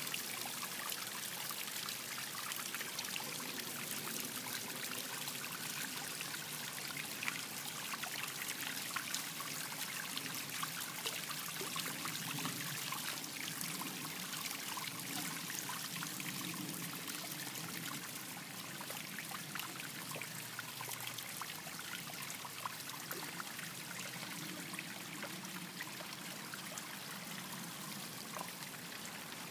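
Steady trickling of running water, with small scattered splashy ticks and no change in level.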